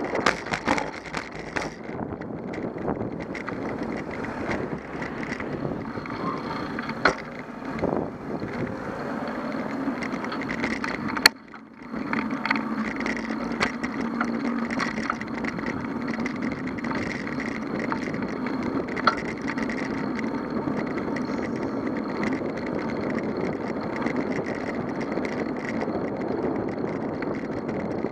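Rolling noise from a moving bicycle: steady tyre-on-road rumble with rattles and occasional sharp knocks from the bike and camera mount, and a brief drop in the noise about eleven seconds in.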